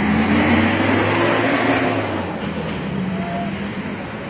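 A Mitsubishi pickup truck's engine as it drives past close by, loudest in the first two seconds and then fading, over steady street traffic noise.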